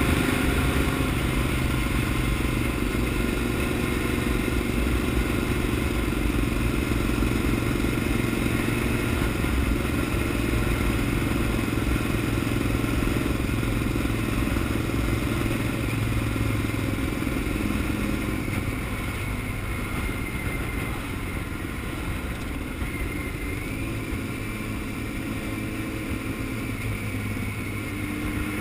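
Honda CBR600F inline-four engine running steadily under way, with road noise; it gets a little quieter from about two-thirds of the way through.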